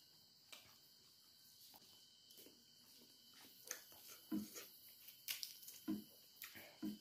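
Faint eating sounds: chewing with the mouth closed and fingers mixing rice on a banana leaf, with a few soft smacks and clicks, more of them in the second half.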